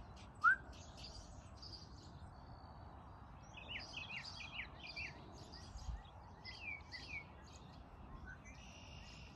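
Songbirds chirping and calling, with a quick run of short clipped notes between about three and a half and seven and a half seconds in, over faint outdoor background noise. A single short, loud rising whistle-like note stands out about half a second in.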